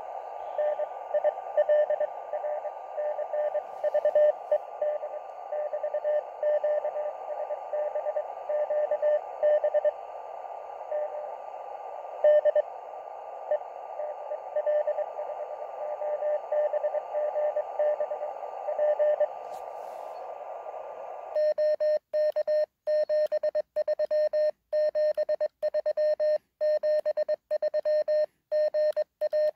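Shortwave receiver audio from a (tr)uSDX transceiver: band hiss with a weak Morse code signal keying in and out of the noise. About two-thirds of the way through, the hiss cuts out and the radio's own clean Morse sidetone takes over, keyed on and off with silence between the elements as it transmits.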